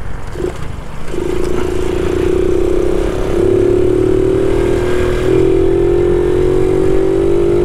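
Honda Biz 125 underbone motorcycle's single-cylinder engine running under way, its note entering about a second in and climbing slowly, with two small steps in pitch along the way.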